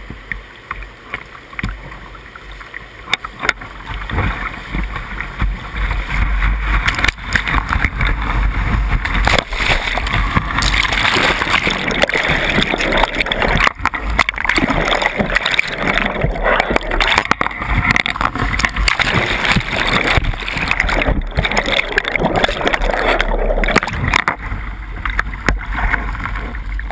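Whitewater rapids rushing around a kayak, with paddle strokes and waves splashing over the boat, close to the microphone. The rush grows louder about four seconds in as the boat drops into the rapid.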